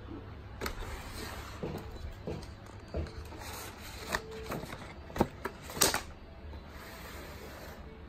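A cardboard gift box being handled while its elastic cord is worked off: rubbing and scraping of card with a run of sharp taps and snaps. The two loudest snaps come about five and six seconds in.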